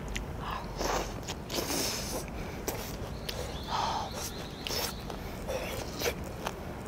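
Close-miked chewing of grilled pork: wet mouth clicks and lip smacks, with a few short breathy puffs.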